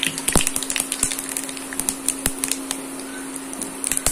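Whole spices (mustard seeds, fennel, cumin, bay leaves) sizzling in hot oil in a pan, with irregular sharp pops and crackles as the mustard seeds splutter. This is the tempering stage, before the onions go in.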